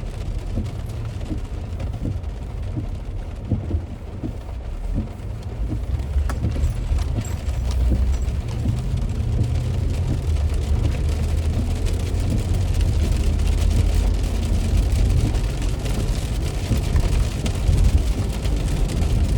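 Heavy rain on a moving car heard from inside, with a steady low road-and-engine rumble that grows louder about six seconds in.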